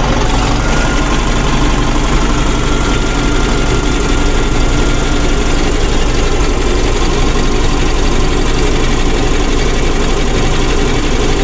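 Eicher Pro 3019 truck's 3.8-litre four-cylinder common-rail diesel engine idling steadily.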